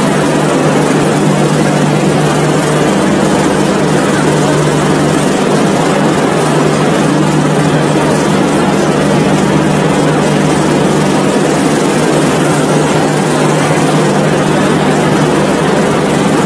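Steady, loud running noise of a train in motion, a wide rushing rumble over a constant low hum, with no clear wheel-clatter rhythm.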